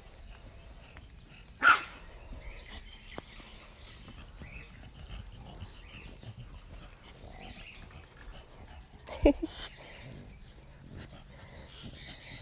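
Old English Bulldogs making two short, sharp dog vocalizations, one under two seconds in and one about nine seconds in, over a faint steady high tone.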